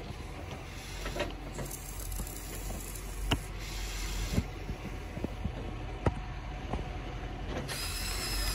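Huina 580 remote-control excavator's electric drive gearing and tracks running with a steady mechanical clatter as it tracks down a steep dirt slope, with a few sharp clicks along the way.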